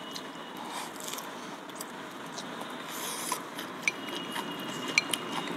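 Metal forks clicking and scraping against glass bowls and a metal pan, with a few sharp clinks near the end, over quiet eating sounds as spicy noodles are slurped and chewed.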